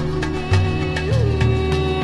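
Instrumental soundtrack music: a long held melody note with a short ornamental turn about a second in, over a sustained low bass and light, steady percussion.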